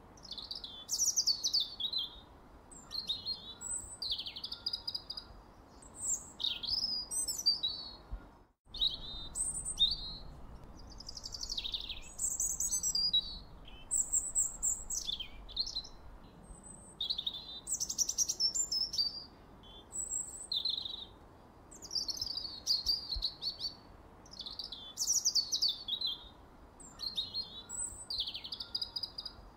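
A songbird singing a varied song of short, high, warbling and gliding phrases with brief pauses between them, over a faint low hiss. The sound cuts out completely for an instant about eight seconds in.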